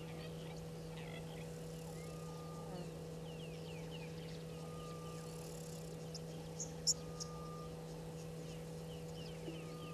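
Outdoor bush ambience: a short, level whistled note repeating about every two and a half seconds, scattered quick chirps, and a brief sharp high chirp about seven seconds in, over a steady low hum.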